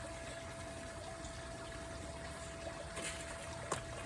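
Steady background hiss with a faint constant hum, broken by a brief rustle about three seconds in and a single sharp click near the end, from hands working at the potting bench.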